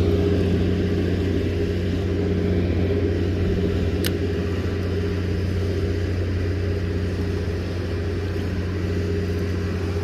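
Steady low mechanical hum, like a motor running, with one sharp click about four seconds in.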